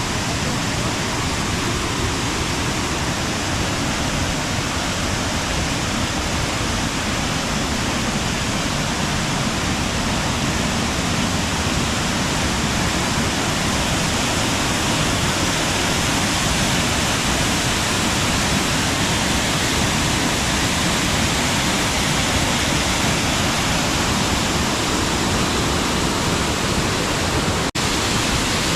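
Waterfall: a loud, steady rush of falling water, with a momentary dropout near the end.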